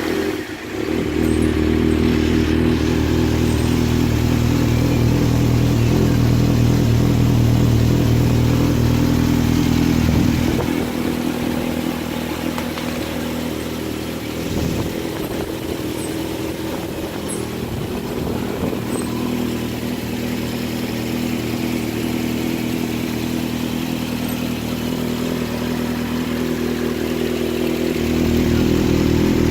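Honda CBX400F's air-cooled inline-four engine running at a steady idle after a full engine overhaul and carburettor rebuild. It gets noticeably quieter about ten seconds in and louder again near the end, with no revving.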